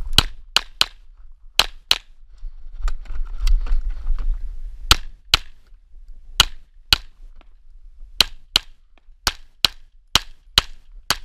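A 9×19 mm Tanfoglio Stock II pistol fired in quick pairs of shots, about sixteen in all, two shots to each target, with short pauses between pairs. Rustling and wind noise on the microphone fill a gap of about two seconds with no shots, a few seconds in.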